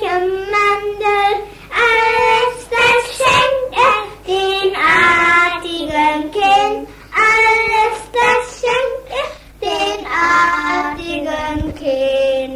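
A child singing, heard on an early home cassette recording made on a Philips EL 3300 recorder, with a steady low hum beneath the voice.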